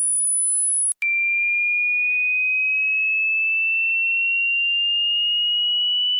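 Synthesized pure sine tone imitating tinnitus ringing in the ears. A very high, thin whine rises slowly, breaks off for an instant about a second in, then comes back as a much lower steady whistle that keeps creeping up in pitch.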